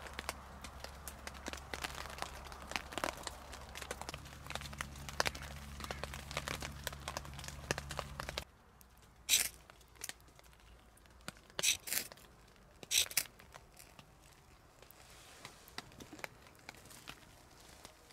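A knife carving dry wood: a run of small cuts and clicks over a low steady hum. About halfway through, several long scraping strokes follow as the blade shaves curls down a feather stick.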